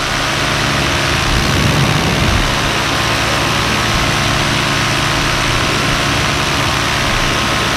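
A paramotor's engine and propeller running steadily in flight.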